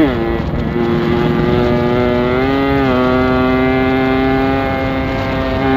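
Motorcycle engine running steadily under way. The revs climb about two and a half seconds in, then hold at a higher pitch.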